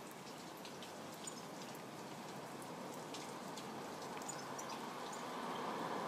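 Steady rain falling, with many small ticks of drops landing on nearby surfaces, growing a little louder near the end.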